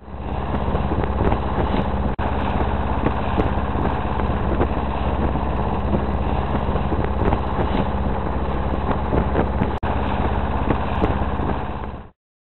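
Boat engine running steadily: a loud, even drone that fades in at the start, drops out for an instant about two seconds in and again near ten seconds, and fades out just before the end.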